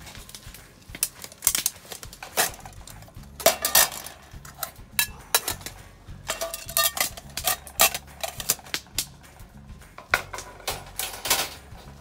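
Camp cookware, a wooden cutting board and a knife being set down and handled on a metal mesh table: an irregular run of sharp clatters and knocks.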